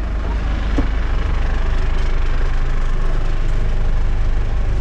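A small ferry boat's engine running steadily, a deep, even engine sound heard from on board, getting a little louder about a second in.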